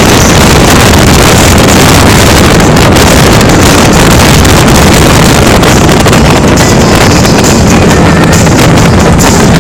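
Shallow stream babbling over stones: a steady, loud rush of water noise with no breaks.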